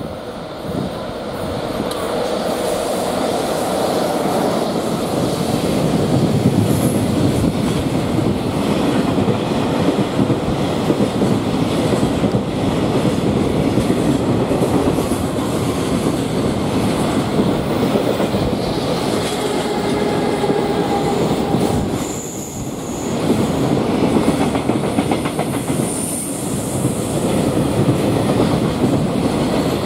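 Container freight train passing close by: a loud, continuous rumble as its flat wagons roll past, with the wheels clattering over rail joints in a steady clickety-clack. A brief wheel squeal about two-thirds of the way through.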